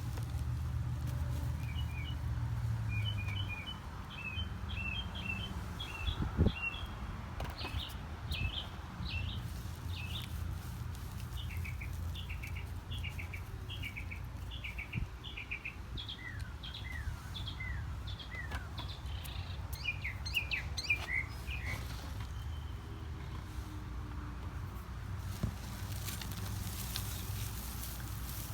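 Small birds chirping: many quick, high chirps in a run, which stop a few seconds before the end, over a steady low hum. A single knock about a quarter of the way in.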